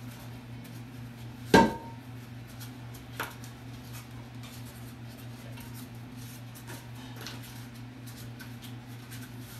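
A sharp clink of hard porcelain and metal, ringing briefly, about a second and a half in, as a toilet tank's mounting bolts and hardware are handled; a smaller click follows a couple of seconds later, then faint ticks. A steady low hum runs underneath.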